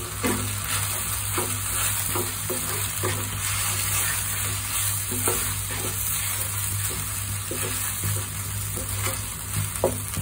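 A wooden spatula stirring macaroni into creamy spinach in a nonstick pan, with short scraping strokes every half second to a second. Under the strokes the mixture sizzles steadily on the heat, over a steady low hum.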